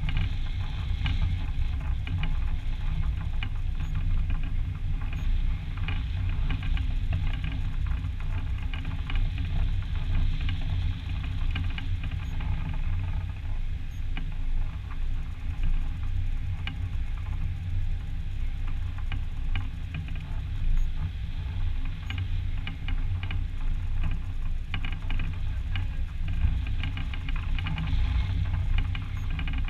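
Wind rushing over a microphone on a hang glider's wing in flight: a steady low rumble with frequent light ticks and rattles.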